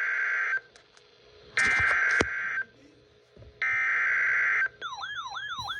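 Emergency Alert System end-of-message signal: the SAME digital data tones sent as three short buzzy bursts, each about a second long and a second apart, marking the end of the alert. Near the end a warbling electronic tone starts, a falling sweep repeated about three times a second.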